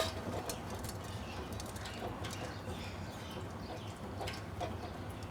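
Faint cookware handling: a few light knocks and clicks as spice-coated arbi slices go into a steaming vessel, over a low steady hum.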